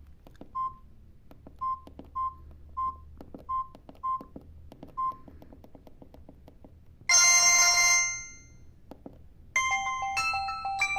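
Samsung GT-E1070 mobile phone: short keypad beeps with key clicks, a brief loud tone about seven seconds in that fades within a second, then a ringtone melody of clear bell-like notes starting near the end.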